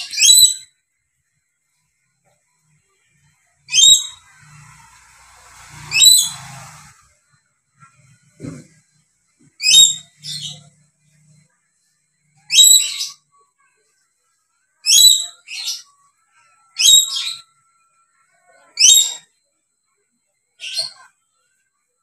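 Dusky lory screeching: about a dozen short, shrill calls, spaced a couple of seconds apart with some in quick pairs and brief silences between them.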